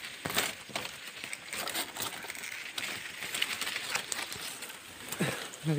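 Dry grass and reed stems rustling and crackling in irregular short clicks as they are pushed aside close to the microphone; a voice starts near the end.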